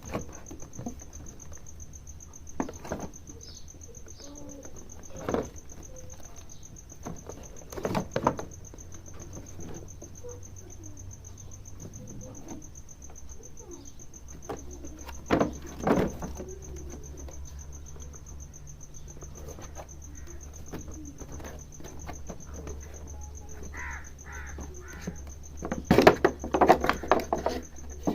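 Unboxing handling of a toy RC car's box and plastic packaging: scattered separate clicks and knocks, with a quick run of them near the end. A steady high-pitched tone sits underneath.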